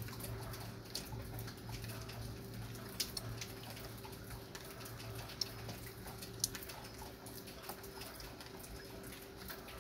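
Light rain: scattered raindrops ticking and pattering at irregular intervals, over a low steady hum.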